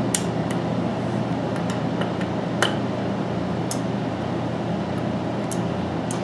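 Scattered sharp clicks and taps of a screwdriver working the plastic push-pins of a stock Intel CPU cooler to release them, the loudest about two and a half seconds in, over a steady low hum.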